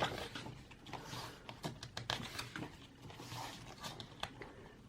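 Faint rustling and scattered light taps of paper and card being handled: album pages and inclusions moved about by hand.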